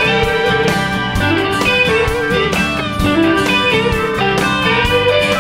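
Background music led by a guitar playing a melody with bending notes over a steady beat.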